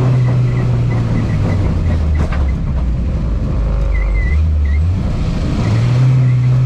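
Lada Niva engine running steadily. Its pitch drops about two and a half seconds in and rises back up about three seconds later as the revs fall and pick up again.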